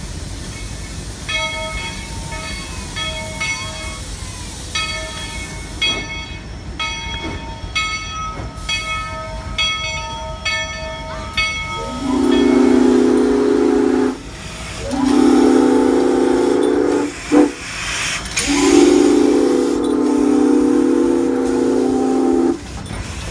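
Steam locomotive's chime whistle sounding three long blasts, the last the longest, over the hiss of venting steam. Before the blasts, short repeated ringing tones come in uneven runs.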